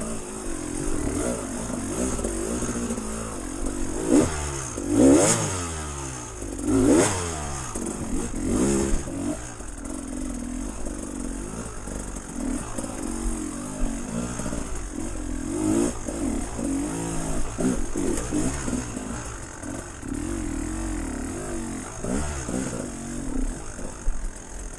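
Off-road vehicle engine running and revving in repeated bursts as it works over rough trail, with clattering.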